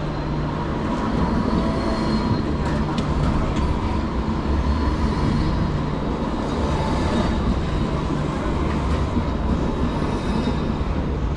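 Sydney L2 light rail tram, an Alstom Citadis, passing close by at low speed on street track: a steady electric hum and the wheels running on the rails.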